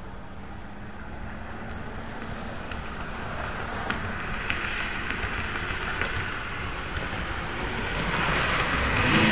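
Cars approaching fast along a street, their engine and tyre noise swelling steadily louder over several seconds. A few faint sharp cracks come through around the middle.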